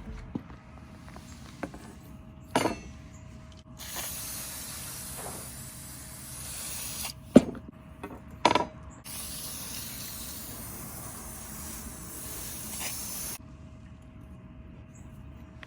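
Two long hissing sprays, about three and four seconds long, with a few sharp clicks and knocks around them.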